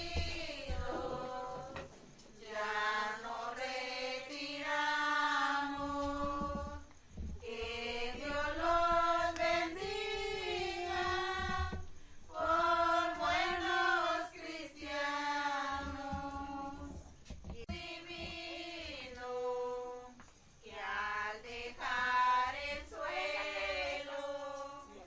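A group of voices singing a slow posada hymn without instruments, in long held phrases with brief pauses between them.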